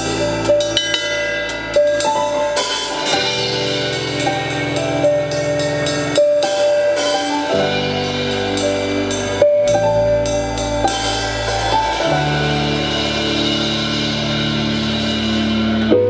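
Live band playing: an acoustic drum kit with snare and cymbal hits over sustained chords and a bass line.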